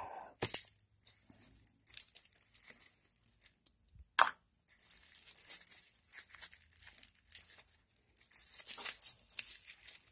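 Clear plastic bag crinkling and rustling in irregular spells as a hand works it open one-handed, with one sharp click about four seconds in.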